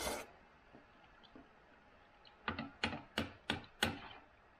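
Metal spoon clinking against a soup bowl, five sharp clicks in quick succession about halfway through, after a brief breathy noise at the start.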